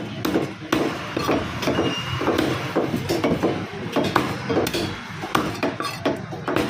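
Heavy meat cleaver chopping goat meat into small pieces on a wooden log chopping block: a run of irregular chops, about two or three a second.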